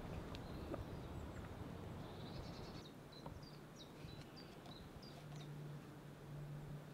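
Faint outdoor birdsong: a small bird giving a run of short, high chirps over a quiet background, with a low steady hum coming in near the end.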